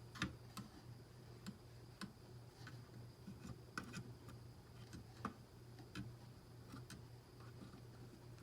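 Light, irregular clicks and taps from handling computer parts and RAM modules, about a dozen scattered through, the sharpest right at the start, over a faint steady low hum.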